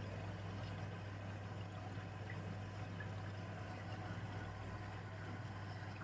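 Indesit washing machine running with a steady low hum and a constant wash of water noise.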